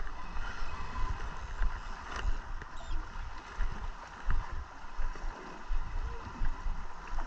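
Wind buffeting the microphone in uneven gusts and small waves lapping against the boat's hull, with a light click about two seconds in.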